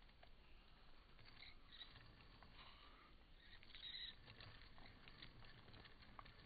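Near silence, with faint scattered small clicks and light rustling.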